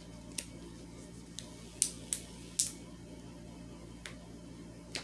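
Fingers testing the adhesive on a diamond painting canvas: a scattering of short, sharp crinkly ticks, the loudest two about two seconds in, over a faint steady hum.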